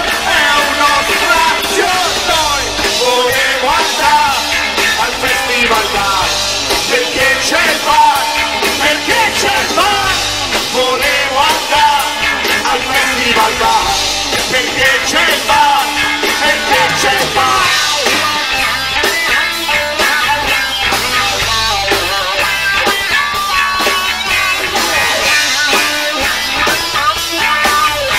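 A live rock band playing loudly and steadily: electric guitars over a drum kit, in a fast punk-rock style.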